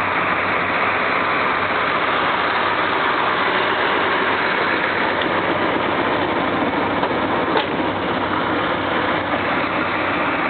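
1967 Plymouth GTX's 440 V8 idling steadily and smoothly through its stock exhaust, with a single brief click about two-thirds of the way through.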